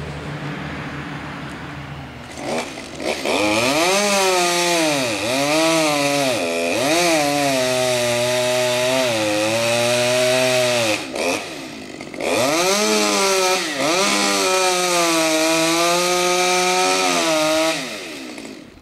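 Two-stroke top-handle chainsaw idling, then revved and cutting into a tree trunk. Its engine pitch dips again and again as it bogs under load in the cut. The cutting breaks off briefly about 11 seconds in, resumes, and stops near the end.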